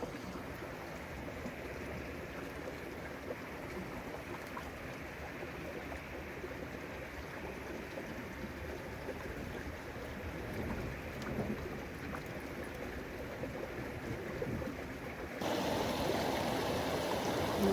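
Stream water running over rocks, a steady rushing. About fifteen seconds in it abruptly becomes louder and brighter.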